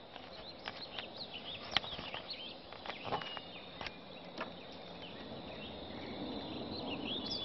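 Woodland ambience: small birds chirping in short, high calls over a faint, steady insect buzz, with a few soft clicks.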